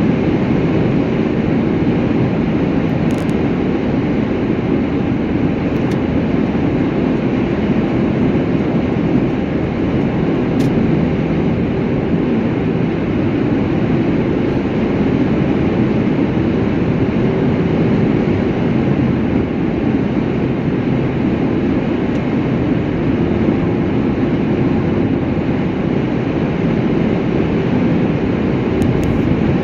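Steady rumble and hiss of a vehicle in motion, even throughout with no changes.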